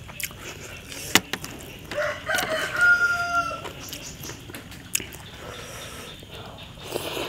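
Rooster crowing once, a long held call about two seconds in. A few sharp clicks of a metal fork against a metal tray come before and after it.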